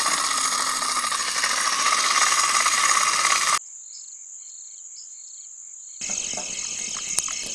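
Night chorus of crickets and other insects: a steady high trill with regular chirps. The level drops abruptly about three and a half seconds in and jumps back up about six seconds in.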